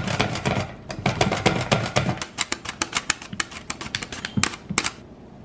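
Cucumber slid back and forth over a plastic mandoline slicer, a fast run of sharp clacking strokes, several a second, as slices drop into a glass bowl. The strokes thin out and stop about five seconds in.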